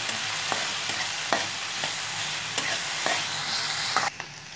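Chopped green capsicum sizzling in hot oil in a metal kadai while it is stirred, with the stirring spatula clicking and scraping against the pan several times. The sizzle drops abruptly about four seconds in.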